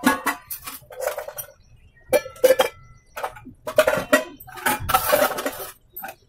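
Metal kitchen utensils and pots clinking and clattering in a string of irregular knocks, a few ringing briefly.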